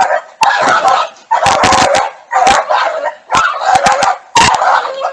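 Border collie barking and yelping in a run of loud bursts about a second apart, the dog under attack by a raccoon.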